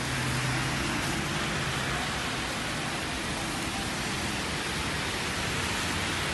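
Steady hiss of rain and car tyres on a wet, waterlogged road as traffic passes.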